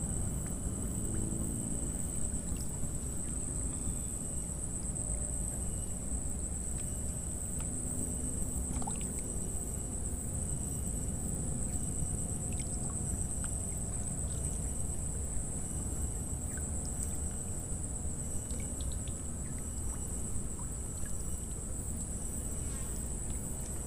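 Insects chirring steadily in a continuous high-pitched drone, over a low background rumble, with a few faint scattered chirps and ticks.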